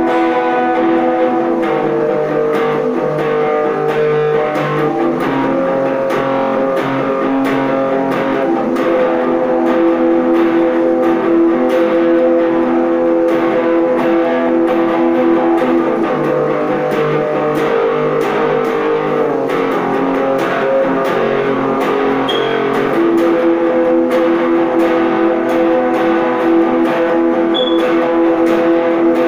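Electric guitar being played: chords picked and strummed, the notes ringing on and changing every few seconds.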